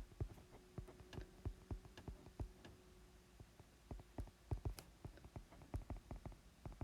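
Faint, irregular tapping of a stylus on an iPad screen while writing, about two to four taps a second, over a faint steady hum.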